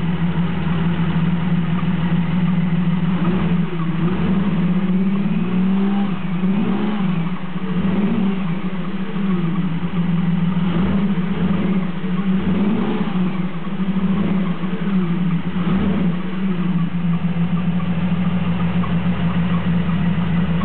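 1993 Jeep Cherokee engine idling, then revved up and let fall back repeatedly over about a dozen seconds before settling to idle again; the engine has a misfire.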